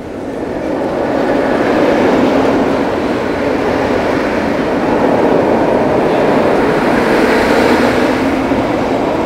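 Mr. Freeze launched shuttle roller coaster train running along its steel track: a loud, steady rolling roar of the wheels. It swells over the first couple of seconds and stays strong, getting brighter near the end.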